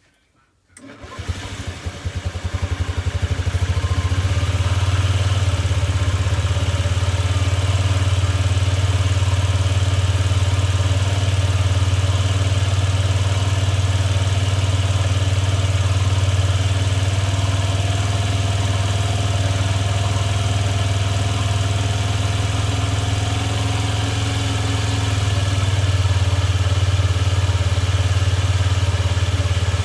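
A long-stored 50cc scooter engine starts about a second in and settles into a steady idle.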